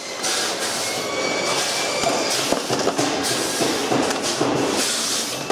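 Steady clattering factory machinery noise, with short knocks and scrapes of hand tools against the plastic frame of a pachinko machine being taken apart.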